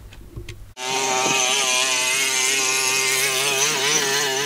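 A glow-fuelled two-stroke nitro RC engine running steadily with a high-pitched whine that wavers slightly in pitch. It starts abruptly about a second in, after a moment of near quiet.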